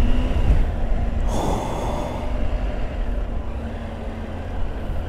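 Triumph Tiger motorcycle's three-cylinder engine running under way at low city speed, under a steady low rumble of wind on the microphone. A brief rush of noise comes about a second and a half in.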